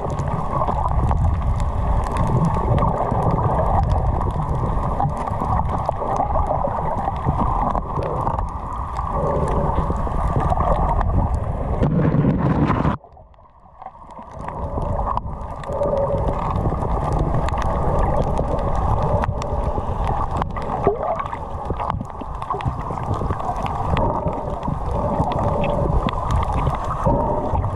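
Muffled, rumbling water noise picked up by an action camera in a waterproof housing under water, with frequent small knocks against the case. It drops away for about two seconds near the middle, then comes back.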